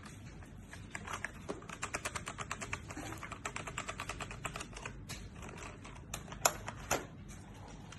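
Typing on a ZIYOU K3 full-size mechanical keyboard with red linear switches. A fast run of keystrokes lasts about four seconds, then a few slower, louder keystrokes come near the end.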